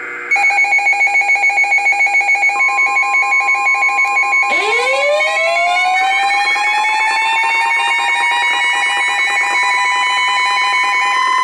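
Layered electronic alert sounds: a rapid beeping alarm, joined about two seconds in by a steady high tone. About four and a half seconds in, a siren winds up in pitch and then holds.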